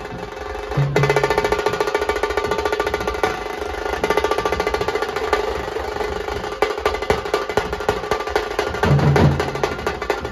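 Nashik dhol band drumming: a dense, fast drum roll starts about a second in and runs on, with deep dhol beats near the start and again near the end.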